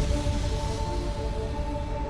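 Background music: held notes over a low bass, slowly getting quieter.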